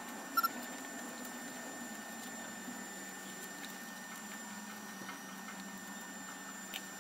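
Faint scratching and light ticking of cotton thread being wound and pulled around copper-plated nails on a string-art board, over a steady background hum. A brief double high chirp sounds about half a second in.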